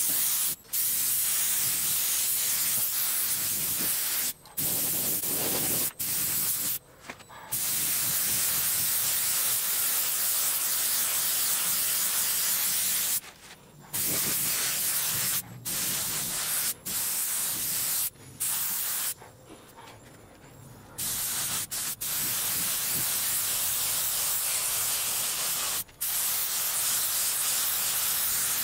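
Compressed-air gravity-feed spray gun spraying water-based leather paint in a first coat. It makes a steady hiss of air and atomised paint that stops about ten times as the trigger is let off between passes. The longest break comes about two-thirds of the way through.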